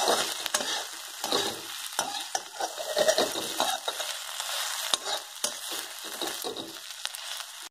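Cut okra sizzling in oil in a wok while a spatula stirs and scrapes through it, irregular scraping strokes over a steady frying hiss.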